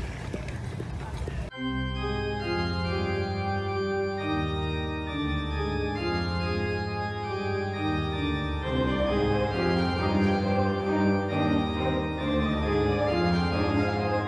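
Organ music playing slow sustained chords, starting abruptly about a second and a half in after a brief burst of noisy sound.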